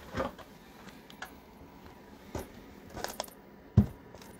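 Handling noises: scattered light knocks and rustles, with a sharper thump near the end.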